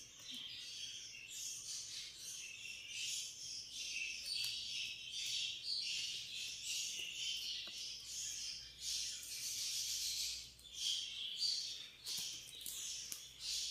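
Flat plastic basket-weaving wire rubbing and squeaking against the woven plastic strands as it is pulled through the weave and wound around the handle, in uneven high-pitched scratchy spells with a few light clicks.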